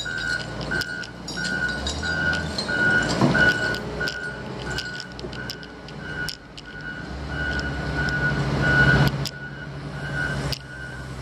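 Reversing alarm on heavy construction machinery beeping steadily, about one and a half beeps a second, over the machine's engine running, which grows louder twice. Scattered clanks and knocks.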